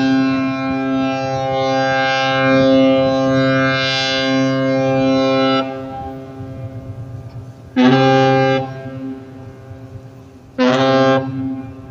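Container ship's horn sounding a long, steady, low blast that stops about five and a half seconds in, followed by two short blasts of the same note a few seconds apart.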